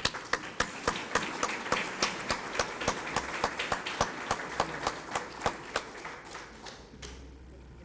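Audience applauding, with one nearby clapper's sharp claps standing out at about three or four a second. The applause dies away about six to seven seconds in.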